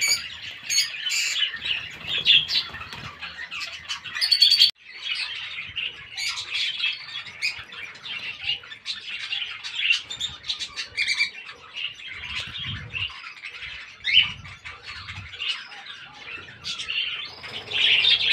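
A busy chorus of small aviary birds chirping and twittering without pause, broken briefly about five seconds in.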